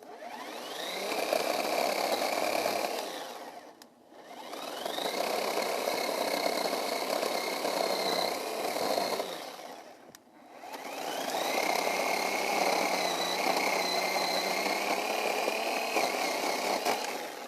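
Ozito 10-inch battery chainsaw running in three long runs, each starting with a rising whine as the chain spins up, holding a steady high whine and then winding down, with short pauses in between. The dense rasping under the whine is the chain cutting through a hardwood limb.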